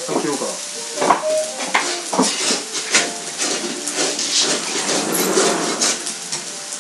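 Food sizzling on a hot barbecue griddle while metal utensils clatter and scrape against it in irregular knocks.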